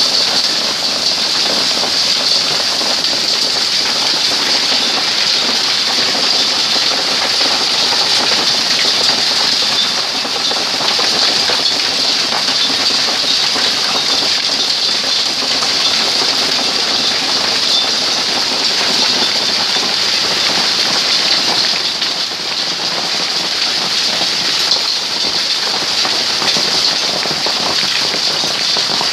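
Hail pelting down in a dense, steady, loud clatter, with rain, during a hailstorm.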